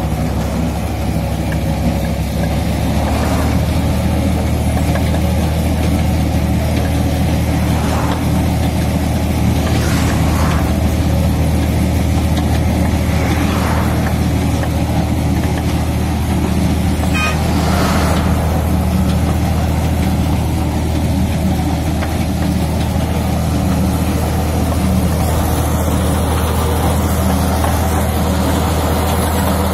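Tractor engine running steadily under load as it drives a rotary brick-moulding machine, with a few faint knocks at irregular intervals.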